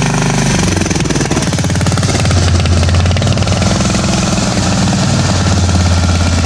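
Small single-cylinder petrol generator engine mounted on a motorcycle, running hard at full throttle and spinning a fan propeller; its fast firing note shifts about half a second in and then holds steady.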